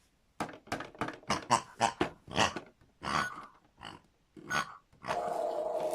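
A pig's short grunts and oinks in quick, uneven succession, thinning out after about three seconds. About five seconds in, a steady mechanical hum starts up.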